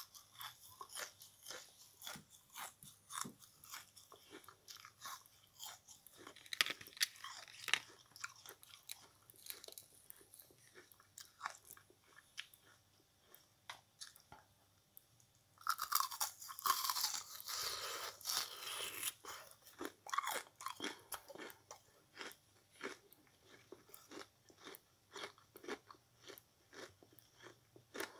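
Close-up chewing of small cubes of yellow sponge: an irregular run of short bites and crunches, a few each second. The chewing grows denser and louder for a few seconds just past the middle.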